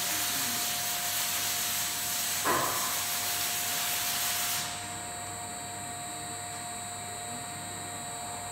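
Heckert 70.30 scissor lift table running, its drive making a steady whine over a hiss. There is a single clunk about two and a half seconds in, and the hiss falls away a little past halfway while the whine carries on.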